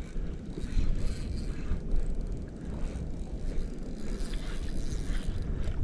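Wind buffeting the microphone on a kayak at sea: a steady low rumble.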